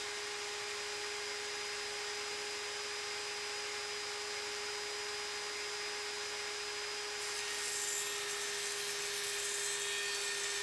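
Steady hum of factory machinery with a constant whine. A hissing, grinding layer joins about seven seconds in.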